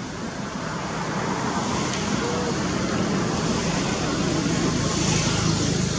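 Road traffic noise: a steady rushing sound that grows louder, peaking about five seconds in, as a vehicle approaches.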